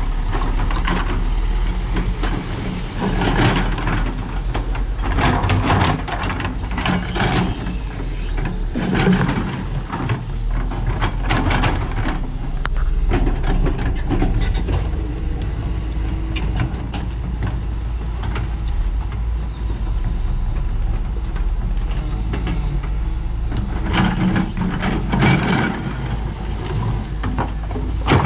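Doosan DX225LCA excavator's diesel engine running steadily under load, with repeated noisy surges of hissing and clatter as it works, loading a dump truck.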